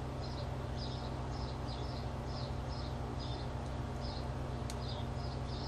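Repeated short high chirps, about two to three a second, like a small bird calling, over a steady low hum.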